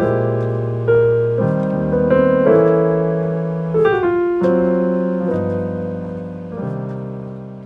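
Background piano music: slow, sustained chords and notes that grow quieter toward the end.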